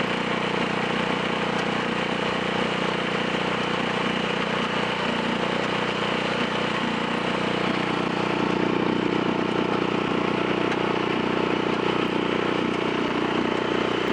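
An engine running steadily, a little louder from about eight seconds in.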